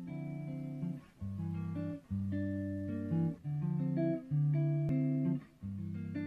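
Solo archtop jazz guitar playing a slow run of chords, each held for about a second with short gaps between them.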